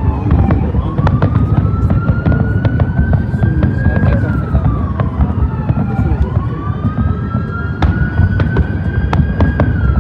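Aerial fireworks shells bursting, with a steady low rumble and many sharp crackles. Over them a siren wails, rising slowly and falling again about every five to six seconds.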